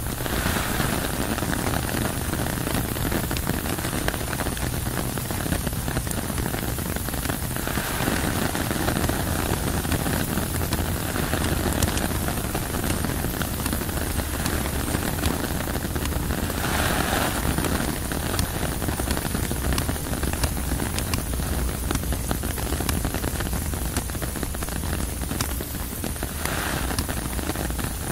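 Steady rain on tent fabric, a dense hiss with many small drops ticking on it. Gusts of wind swell and fade a few times.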